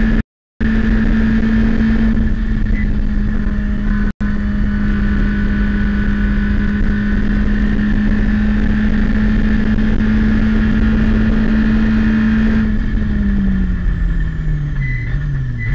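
Citroën Saxo race car's four-cylinder engine heard from inside the cockpit, held at a steady high pitch near 6,600 rpm in fifth gear. About 13 seconds in the pitch falls under braking, with short upward steps as it changes down. The sound cuts out briefly twice, near the start and about four seconds in.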